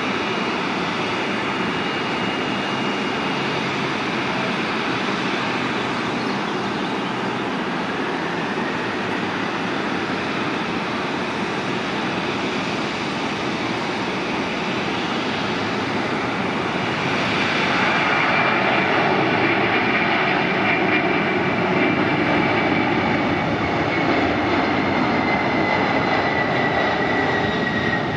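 Jet engines of a McDonnell Douglas MD-11F freighter at takeoff power during its takeoff roll: a steady roar that grows louder about 17 seconds in, joined by a high whine that slowly falls in pitch.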